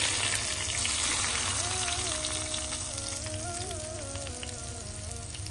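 Hot oil with cumin seeds sizzling and crackling as it is poured over yogurt for a tempering (bhagar), the sizzle slowly dying away.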